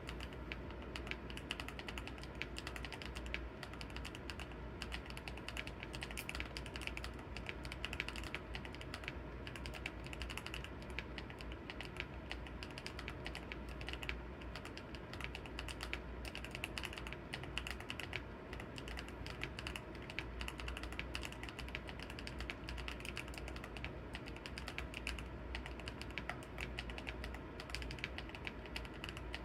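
Steady, continuous typing on a GMK67 mechanical keyboard with lubed, tactile Akko Cream Blue V3 Pro switches and PBT Cherry-profile keycaps, the keystrokes coming quickly with no pauses. The board is foam-dampened and tape-modded, with lubed, balanced stabilizers.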